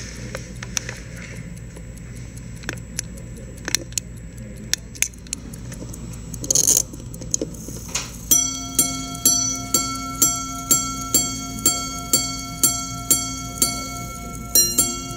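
Hy. Moser & Cie repeater watch: a few seconds of ticking and small clicks and a brief rasp, then its hammers strike the gongs about twice a second, each blow ringing on. A first run of strikes on one gong is followed near the end by strikes with a different pitch, as the repeater chimes the time.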